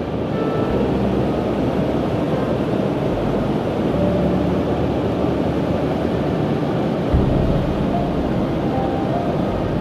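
Steady roar of the Coquihalla River's whitewater rushing through its rock gorge, with uneven low rumbling on the microphone and a single bump about seven seconds in.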